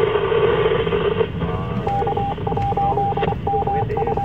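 Ham radio audio: a muffled voice on the net, and from about two seconds in a steady beeping tone keyed in short and long pieces, Morse code of the kind a repeater sends to identify itself, running over the voice.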